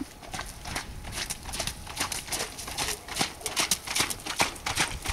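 Hooves of a trotting horse striking wet, puddled arena footing in a steady rhythm, growing louder as the horse comes close.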